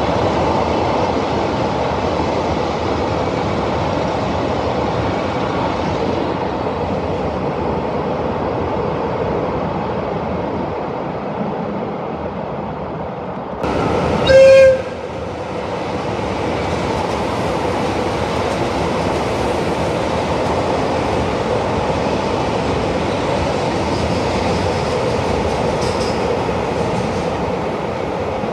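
Trains running past on the rails with a steady rumble. About halfway through, an approaching train sounds one short horn blast of about a second, the loudest sound, and the rumble carries on after it.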